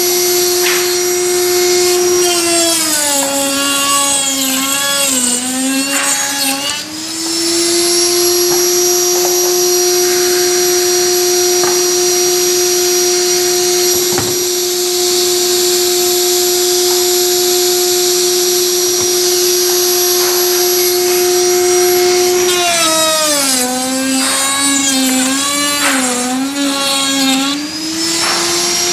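Electric power tool motor working wood, running with a steady whine. Twice its pitch sags and wavers for a few seconds as the motor takes load, then climbs back to full speed.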